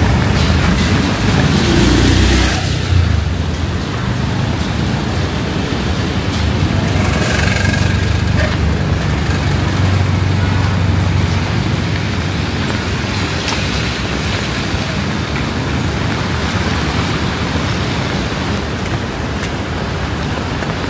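Steady rain mixed with city road traffic, engines running close by, loudest in the first couple of seconds.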